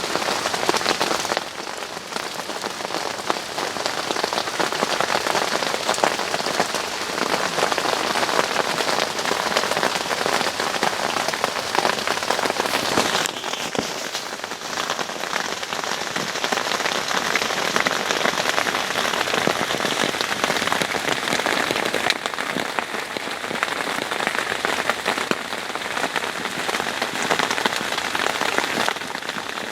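Steady heavy rain falling, a dense even patter.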